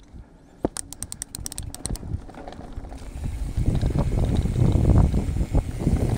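A Specialized Status 160 mountain bike's rear freehub ticks rapidly, about ten clicks a second, for about a second as the bike coasts. From about three seconds in, tyres rumble over a dirt trail covered in dry leaves, with rattling from the bike and wind on the microphone, growing louder as the bike picks up speed.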